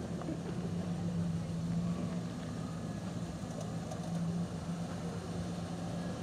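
Range Rover Classic's V8 engine running at steady low revs under load as the 4x4 crawls over a rocky ledge.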